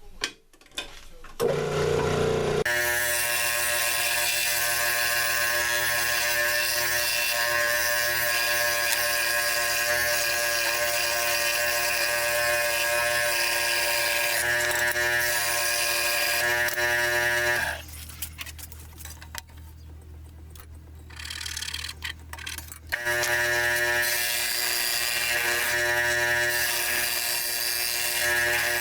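A power tool's motor runs steadily with an even, pitched hum. It stops a little past the middle and starts up again a few seconds later.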